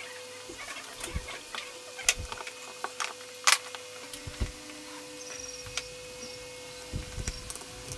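Scattered light taps and scratches of wood strips and sandpaper being handled and pressed on a wooden workbench, with the sharpest clicks about two and three and a half seconds in, over a faint steady hum.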